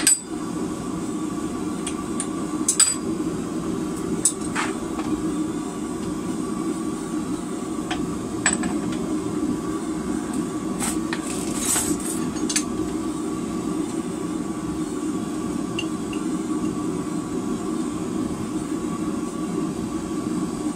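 Propane gas forge burner running with a steady rushing noise. Now and then there is a sharp metal clink as hot steel is worked with tongs and a bar in a bench vise.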